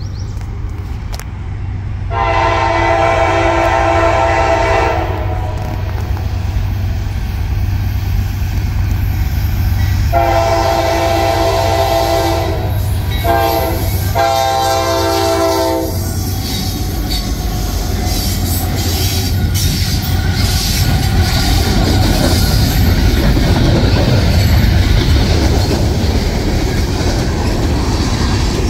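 A Norfolk Southern freight locomotive's multi-tone horn sounds the grade-crossing signal, long, long, short, long, over the low rumble of the approaching diesels. From about sixteen seconds in, the locomotives pass and the loaded freight cars rumble and clatter by over the rail joints.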